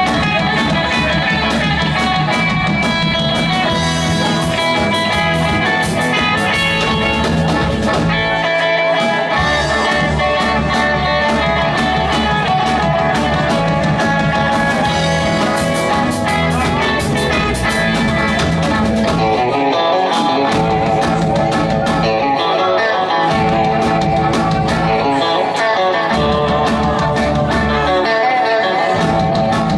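Rock and roll band playing an instrumental passage, guitar to the fore, over a steady beat.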